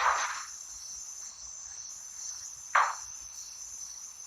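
Crickets chirping in a steady high-pitched drone, with two brief soft noises, one at the very start and one just under three seconds in.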